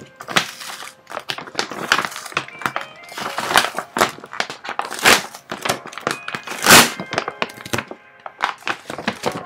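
A large white mailer envelope being pulled open by hand: a dense run of crinkling and rustling, with the loudest crackle about six and a half seconds in.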